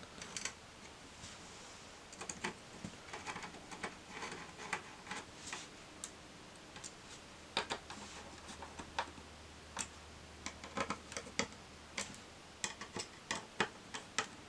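Irregular light clicks and ticks of a small precision screwdriver turning tiny 2.5 mm metal screws into the pillars of a Raspberry Pi add-on board, with small handling knocks from the board. The clicks come in loose clusters and grow denser near the end.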